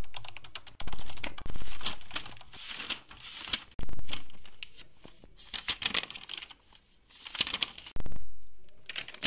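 Paper pages of a notebook being flipped and handled: a run of separate loud rustles.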